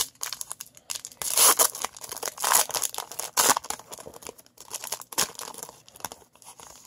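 Foil wrapper of a trading-card pack being torn open by hand. A few loud rips come in the first half, followed by quieter crinkling of the foil.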